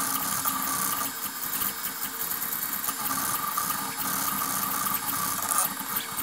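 Mydata pick-and-place machine running, a steady mechanical whirr with a constant high tone and fast, fine rattling clicks.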